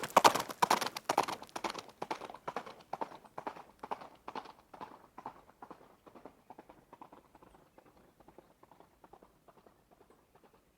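A running horse's hoofbeats: a fast, continuous train of hoof strikes, loud at first and fading away over several seconds until they are barely audible near the end.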